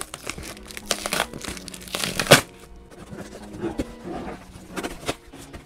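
Cardboard shipping box and its paper packing being torn open and crumpled by hand: a string of irregular rustles and rips, the loudest about two seconds in.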